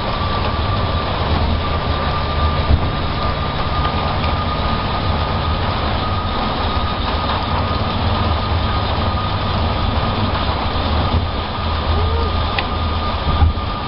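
Road and engine noise heard from inside a moving car: a steady low rumble with a haze of tyre and wind noise and a thin steady whine above it, and one brief bump near the end.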